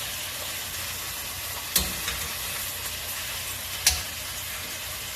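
Salmon pieces frying in hot oil in a pan, a steady sizzle, with two sharp clicks about two seconds apart.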